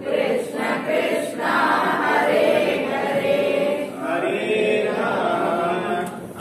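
Many voices chanting together in unison, a devotional group chant held on long notes that rise and fall.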